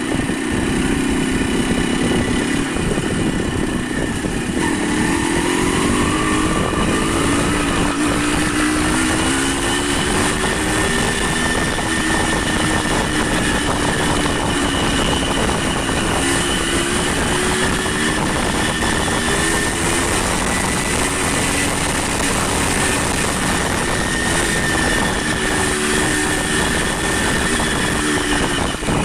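A vehicle engine running, its pitch rising and falling with speed, over a steady rush of wind or road noise.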